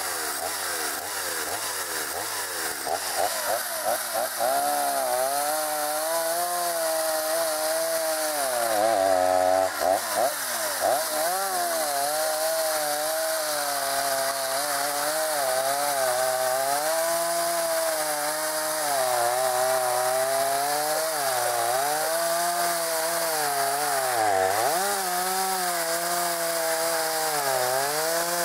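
Two-stroke chainsaw at high revs cutting down through a cradle-full of thin firewood branches. Its engine pitch dips several times as the chain bites into the wood and bogs, then rises again.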